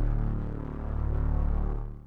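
Intro music under a logo animation, built on deep sustained low tones, fading out near the end.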